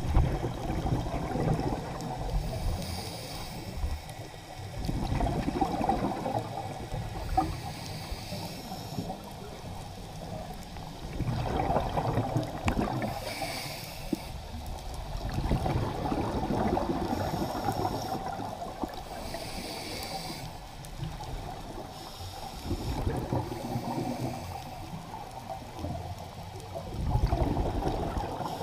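Scuba diver breathing through a regulator underwater: exhaled bubbles gurgling in a swell every four to six seconds, with a fainter hiss of inhalation between them.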